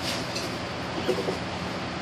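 Steady whooshing hum of a running ceiling fan, with a few short, light knocks and rustles from objects being handled, one at the start and a couple about a second in.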